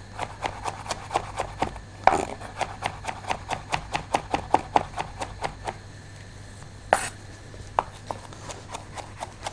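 Chef's knife chopping on a wooden cutting board as garlic is minced fine, quick even knocks about four a second. After about six seconds the chopping stops, then a few scattered knocks follow, one louder than the rest.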